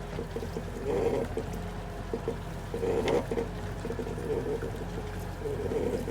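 Skid steer engine running steadily, with bursts of water and mud sloshing about every two seconds as the stuck machine works to pull itself out.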